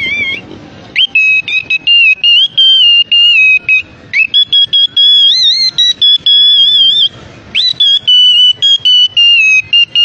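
Parrot whistling loudly: long, clear high notes that bend up and down, broken by short gaps.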